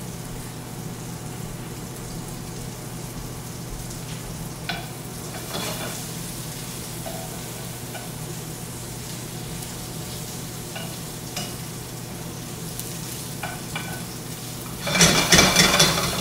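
Vegetables and mushrooms sizzling in a sauté pan on a gas range, with scattered light clicks of a utensil stirring them against the pan over a steady low hum. Near the end comes a much louder burst of sizzling and rattling as the pan is moved.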